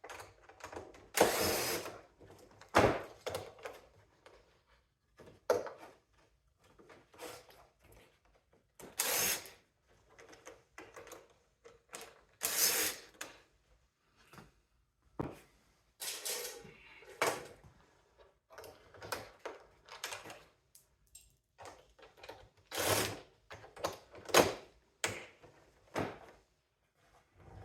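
Screws being taken out of a mini split unit's sheet-metal casing: scattered clicks, scrapes and knocks of the tool and metal panels, each short, with quiet gaps between them.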